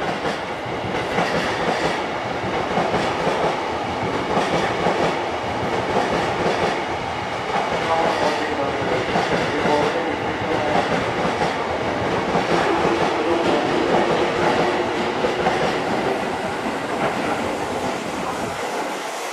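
Seibu 30000 series electric train running slowly into a terminus platform, its wheels clicking over rail joints and points.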